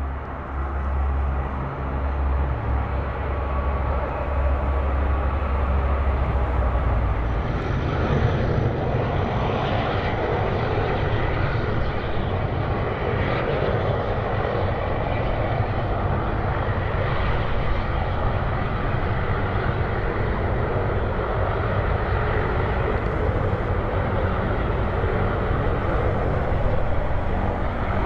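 Airplane engines running close by: a steady roar that builds over the first few seconds, then deepens and broadens about seven seconds in and holds.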